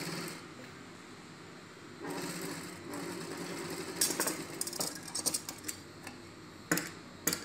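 Mitsubishi industrial sewing machine running in two short runs as a seam is stitched, then stopping. Sharp metal clicks and snips of scissors follow as the thread is cut.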